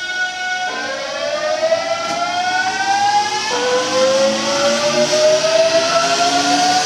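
Hankyu 8000-series electric train (set 8002F) pulling away, its traction inverter and motors whining in several tones that step in pitch about a second in and again midway, then rise steadily as the train gathers speed. This set is known for an unusual motor noise.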